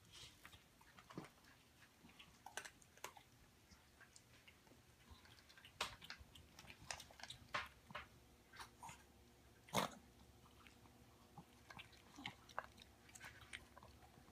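Dog eating from a bowl: faint, irregular crunching and chewing clicks, with one louder crunch about ten seconds in.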